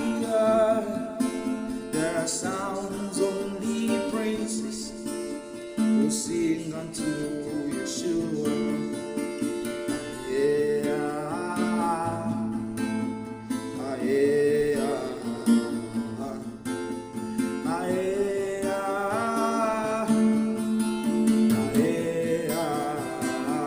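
Acoustic guitar being strummed while a voice sings long, bending notes without clear words over it: a slow worship song.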